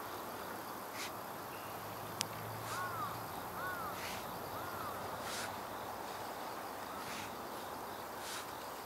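Hand hoe chopping into and scraping loose soil to build up a ridge, with a stroke every one to two seconds and one sharp click of the blade about two seconds in. A steady chirring of insects runs underneath.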